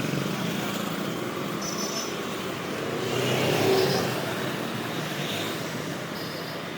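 Street traffic noise, with a vehicle passing by about three and a half seconds in.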